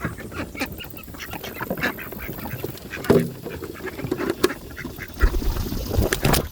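A flock of birds calling close by, with many short, quacking calls overlapping. Near the end comes a heavy low buffeting as a bird flaps up right beside the microphone.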